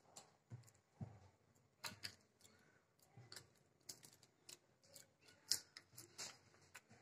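Near silence with faint, scattered clicks and rustles from small objects being handled on a tabletop.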